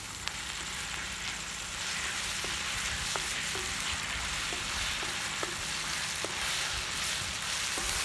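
Chopped ginger and garlic sizzling in hot oil with sliced onions in a large wok, stirred with a wooden spatula that gives a few light taps and scrapes against the pan. The sizzle grows a little fuller about two seconds in and then holds steady.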